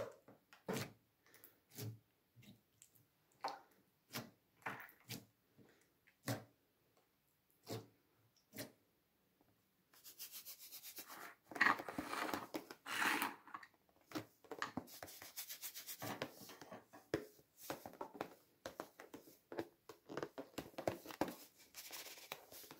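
Hands handling small plastic figurines, slime and a balloon on a tabletop: scattered light taps and clicks for about the first ten seconds, then steady close rubbing noise.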